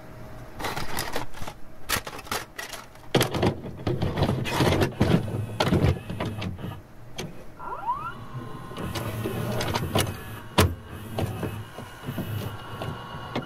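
A busy run of mechanical clicks and knocks over a whirring noise, with a short rising glide about eight seconds in and one loud sharp knock near the end.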